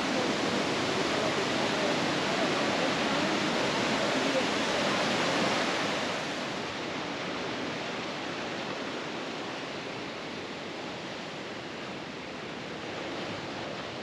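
Steady rush of stream water running over rocks; about six seconds in it gives way to a softer, even wash of ocean surf on a boulder beach.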